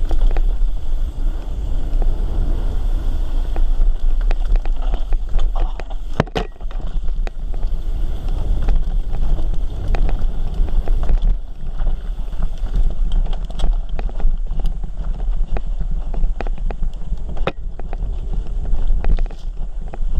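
Mountain bike descending a dirt trail at speed: wind buffeting the camera microphone over the tyres rolling on dirt and gravel. Sharp knocks and rattles come from the bike as it hits bumps, the clearest about six seconds in and another near the end.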